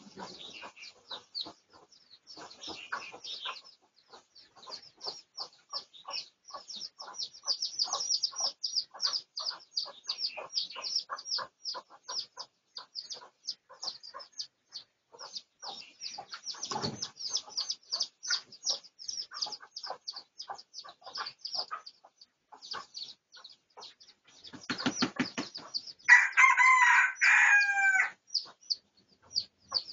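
A junglefowl rooster crows once near the end, one loud call of about two seconds. Low clucking comes just before it, and rapid high chirping runs throughout.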